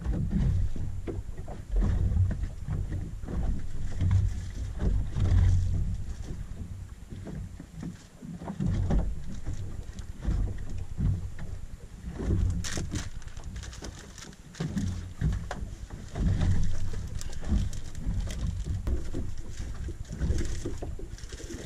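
Wind buffeting the microphone aboard a small boat drifting with its engine off: irregular low rumbling gusts. Scattered clicks and a brief rustle a little past halfway come from handling on deck.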